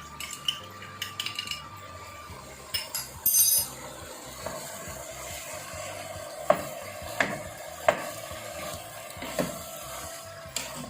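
A cooking utensil stirring and scraping in a pan of frying chicken and vegetables, with light clinks early on and four sharp knocks against the pan in the second half.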